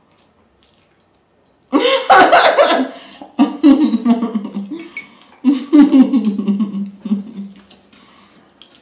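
A woman laughing loudly in three bursts, starting about two seconds in and again at about three and a half and five and a half seconds.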